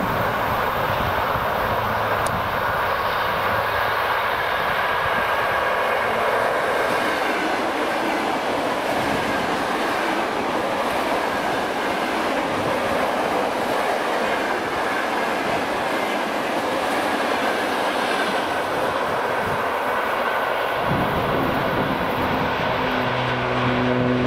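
ED4M electric multiple unit passing close by at speed: a steady rush of steel wheels on the rails, with clicks as the wheels cross rail joints. A low hum sets in near the end.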